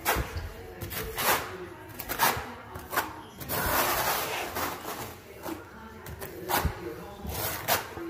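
Steel notched trowel scraping and spreading thinset mortar in repeated, irregular strokes, with a longer spreading sweep about halfway through.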